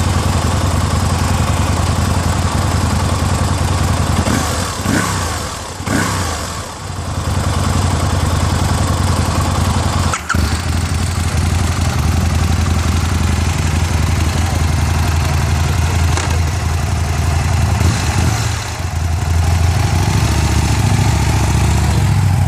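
Aprilia Tuono 1000's V-twin engine running steadily with a deep, even note. Its sound drops and swings in pitch for a couple of seconds several seconds in, breaks off for an instant about ten seconds in, and eases off again for a moment near the end.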